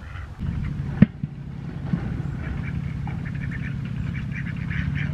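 Domestic ducks quacking, many short calls close together from about two seconds in. A single sharp knock comes about a second in, over a steady low hum.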